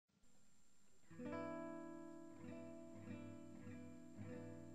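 Background music: an acoustic guitar strumming chords, starting about a second in, with a new strum roughly every half second to second.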